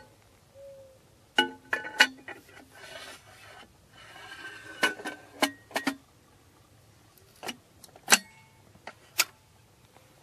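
Steel parts of a recoilless rifle knocking and clicking as the weapon is handled and its breech worked: about a dozen sharp metal clanks in small clusters, some leaving a brief ringing.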